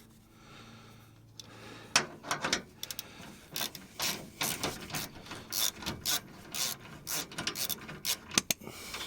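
Hand ratchet wrench clicking in irregular strokes, a few each second after about a second and a half: a bolt being run in on the anti-roll bar bushing bracket.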